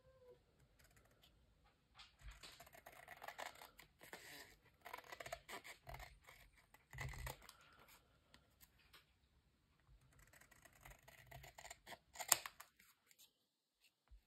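Small craft scissors snipping through card in a few runs of quick cuts, with the card rustling as it is turned between them. A sharp snip a little after twelve seconds in is the loudest, and then it goes quiet.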